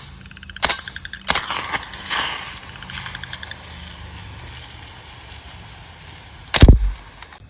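A CO2 BB gun shot, followed by a long hiss that slowly fades over several seconds: gas spraying from the punctured can of butane lighter fluid. A heavy thump comes near the end.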